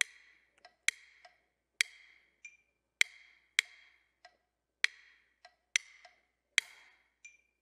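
Two wooden drumsticks clicked together, stick on stick, playing the son clave rhythm in uneven groups of sharp strikes. Fainter, steady metronome clicks sound between the strikes, a couple of them with a short high beep.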